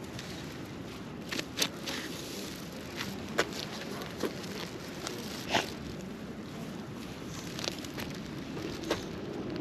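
Steady outdoor background noise with a scattering of sharp, irregular clicks and light crunches, about eight of them, the sounds of a walk on a path.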